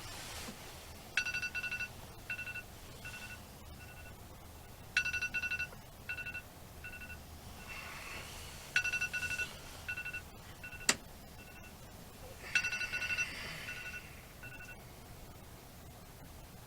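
Phone alarm going off: a repeating electronic pattern of one longer tone followed by four short beeps, sounding four times about four seconds apart. There is a single click near the middle.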